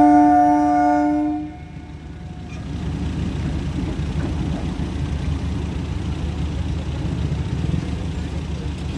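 A DEMU (diesel-electric multiple unit) train's horn holds one steady note and cuts off about a second and a half in. It is followed by the train's low, steady rumble.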